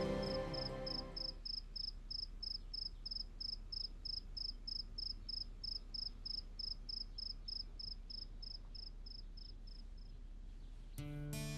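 Cricket chirping steadily, about three short high chirps a second, as music fades out at the start. Plucked-string music comes in near the end.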